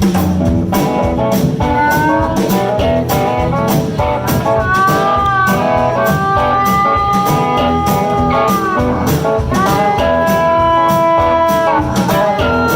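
Live blues band playing: an electric guitar lead with long held, bending notes over a steady drum beat and bass.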